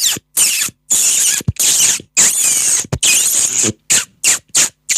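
Beatboxer's vocal imitation of a rat: a rapid run of short, high, hissy squeaks made with the mouth, about a dozen in quick succession.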